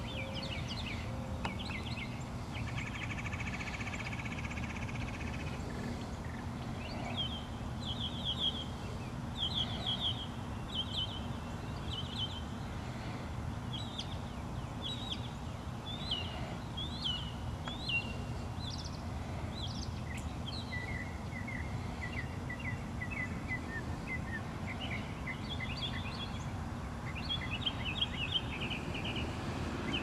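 Several songbirds chirping and singing from the trees: quick runs of short high notes throughout, with a buzzy trill a few seconds in and a lower run of notes about two-thirds of the way through. A steady low background rumble lies under the birdsong.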